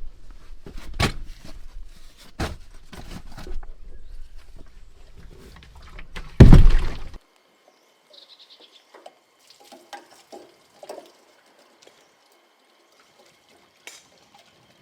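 Knocks and thumps over a low rumble, the loudest about six and a half seconds in, then the sound cuts off abruptly, leaving only faint scattered taps.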